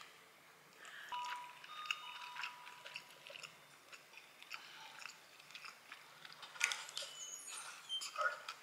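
Quiet background music with held notes, under faint eating sounds: chopsticks and a wooden spoon clicking against the dishes, and chewing.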